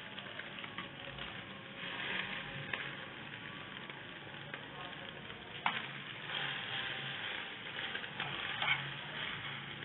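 Egg-dipped bread rolls sizzling as they shallow-fry in hot oil in an aluminium pan. The sizzle swells about two seconds in and again past the middle, with a few sharp clicks as the rolls are turned and laid back in the pan.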